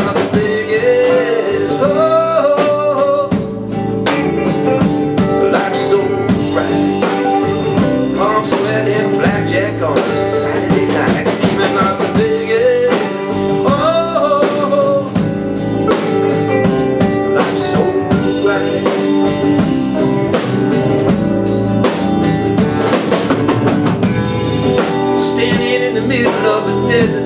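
Live band music: acoustic and electric guitars, upright bass and drum kit playing together, with a melody line bending in pitch over the steady drum beat.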